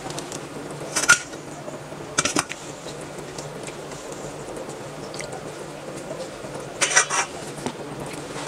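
Kitchen tongs clinking and scraping against a rice cooker's metal inner pot as pieces of poached chicken are lifted out of the broth: short clinks about a second in and two seconds in, and a longer run of clatter near the end.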